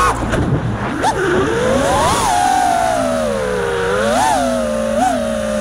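5-inch FPV freestyle quadcopter's motors and propellers whining, the pitch rising and falling with the throttle: a climb about a second in that peaks near two seconds, a long slide down, then two short throttle blips near the end.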